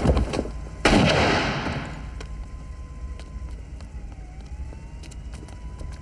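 Gunshots from a film soundtrack: a sharp shot right at the start, then a louder one about a second in with a long echoing tail that dies away over a second or so.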